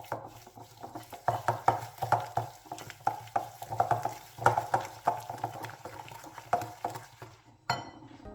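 Irregular light knocks and taps, a few each second, like handling or stirring things on a hard surface, with a brief ringing tone near the end.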